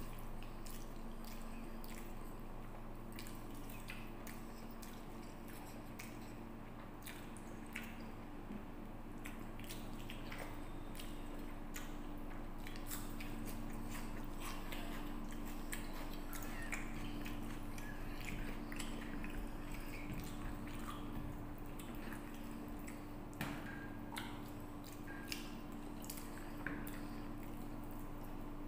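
Eating rice and curry by hand: fingers mixing and squishing the food on a plate, with chewing and many small mouth and finger clicks, over a steady low hum.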